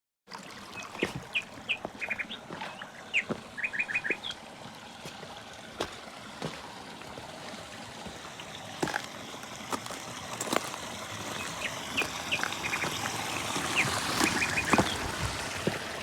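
Birds chirping in short quick runs of notes over a steady rush of flowing water, which grows louder toward the end, with a few scattered clicks.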